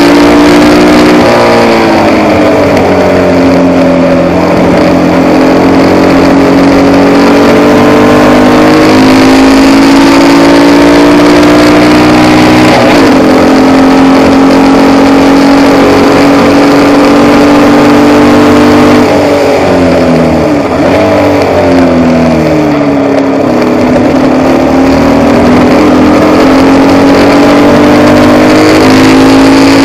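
Formula Vee race car's air-cooled Volkswagen flat-four engine at racing speed, heard from the cockpit and loud throughout. The engine note holds high and climbs through the gears, dropping sharply with braking and downshifts about a second in and again around twenty seconds in.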